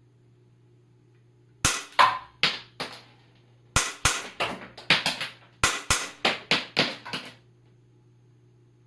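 GLOCK 17 cap-firing model gun with an FD917 suppressor firing about seventeen sharp cap shots in three quick strings, each crack with a short ringing tail. A faint steady hum runs underneath.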